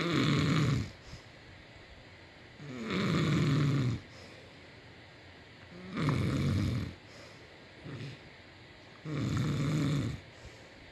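A man snoring: four rough snores about three seconds apart, each lasting about a second, with quieter breathing between them.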